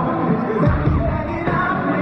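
Live pop-rock band playing with a male lead vocalist singing, heard through the arena's PA from among the audience.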